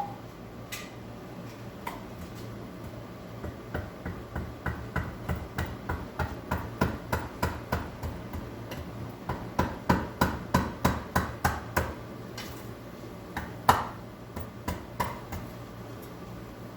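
Garlic cloves being pounded to a mash: a run of sharp knocks, about three a second, that stops, starts again and ends in a few scattered, harder blows.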